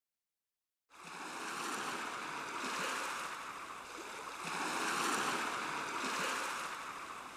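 After about a second of dead silence, a steady rushing noise like surf or running water sets in, swelling and easing twice.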